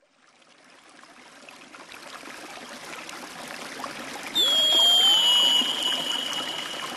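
Steady rush of running water fading in. About four seconds in, a loud high whistled note starts, falls slightly in pitch and holds for over a second before fading.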